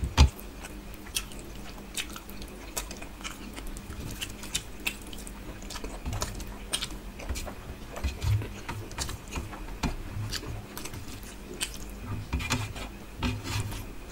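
Close-up eating sounds: fingers mixing and scraping rice and fish curry on a steel plate, and mouthfuls being chewed, heard as many small wet clicks and smacks.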